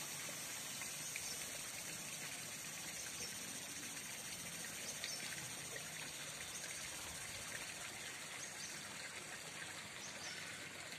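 Steady outdoor ambience: a soft, even hiss like running or trickling water.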